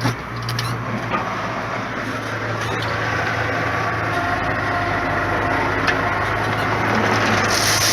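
Engine of a piece of heavy plant running steadily, with a few short knocks. A hiss comes in near the end.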